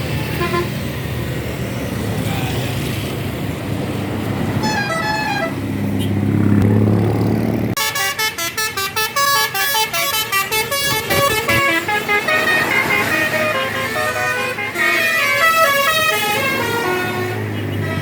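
Tour bus's multi-tone 'telolet' basuri horn playing a fast tune of short notes at many pitches, starting about eight seconds in. Before that the bus engine is running, with a few short horn notes around five seconds in.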